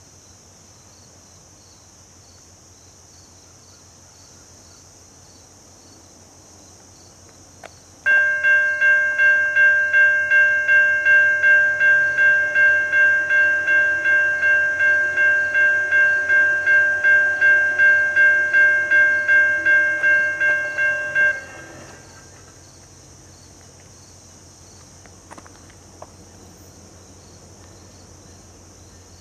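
Railroad grade-crossing bell ringing at an even level, about three strokes a second, starting about 8 seconds in and stopping abruptly some 13 seconds later: the crossing warning activating for an approaching train. Crickets chirp steadily throughout.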